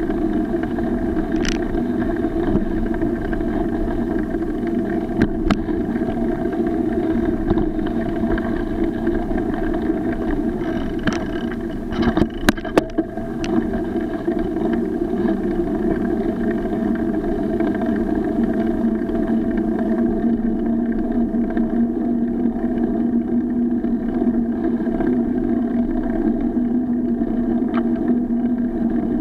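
Bicycle rolling along, a steady road hum with the bike's rattle, broken about twelve seconds in by a quick run of sharp knocks and clatters as it bumps off the road onto a brick-paved sidewalk.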